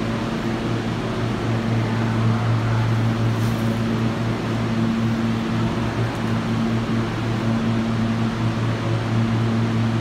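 Underground subway station ambience: a steady low mechanical hum, with a subway train held or creeping far down the tunnel end of the platform. There are no sudden sounds.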